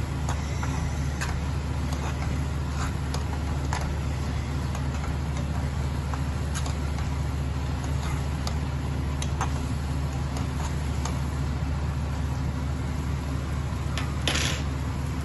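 A steady low mechanical hum, like a motor or fan, with scattered light clicks of a utensil against the steel pot as instant noodles are stirred. A short hiss comes near the end.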